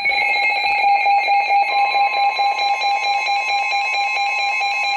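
Emergency alert tones: loud, steady, high-pitched alarm tones with a fast pulsing buzz layered over them. A second, slightly higher tone joins about a second and a half in.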